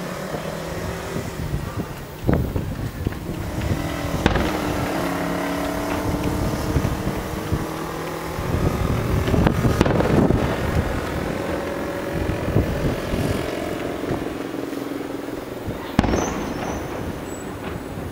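Distant aerial firework shells bursting: about four sharp booms, a few seconds apart, the one near the end the sharpest. Under them runs a steady engine hum whose pitch slowly drifts.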